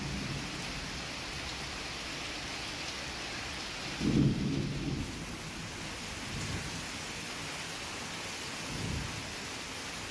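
Heavy rain falling in a steady hiss, with a low rumble of thunder about four seconds in and fainter rumbles later on.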